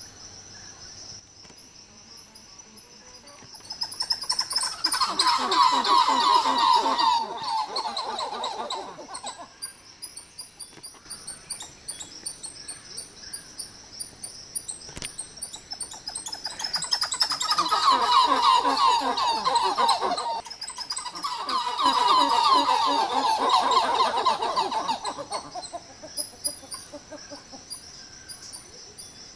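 Dusky titi monkeys calling: three loud bouts of rapid, rhythmic repeated notes, each several seconds long, over a steady high insect drone.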